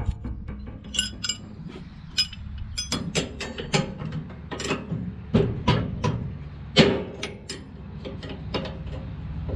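Irregular metallic clinks and clicks of a wrench working on the knotter of an Oliver square baler, loosening the bolts that hold the twine knives. A few louder clanks come about midway.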